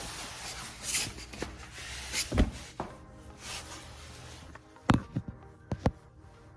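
Rustling handling noise with several short, sharp knocks; the loudest knocks come about two and a half and about five seconds in.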